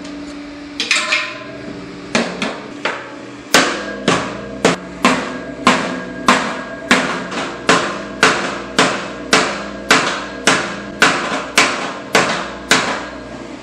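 Hammer blows setting a red-hot rivet in a steel boiler sheet, the metal ringing after each strike. After a few lighter blows, a steady run of heavier strikes begins about three and a half seconds in, a little under two a second.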